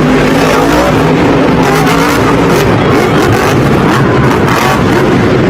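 Monster truck engine running loud and steady.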